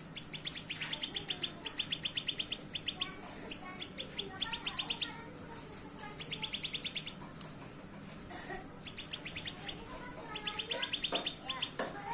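Grey-bellied bulbuls (cucak kelabu) calling: repeated fast chattering trills of short high notes, about ten a second, in bursts of a second or so, with softer lower warbling notes between them.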